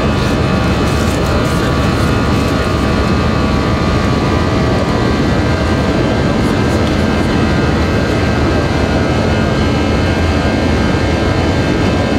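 Jet airliner's engines running, heard inside the passenger cabin: a loud, steady rush with steady high tones over it.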